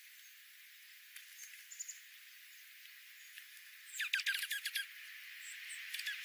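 Small bird calling: a few faint scattered chirps, then about four seconds in a quick run of about eight falling chirps, the loudest part.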